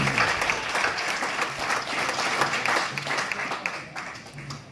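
Comedy club audience applauding, many hands clapping at once, with a few voices mixed in. The applause fades near the end.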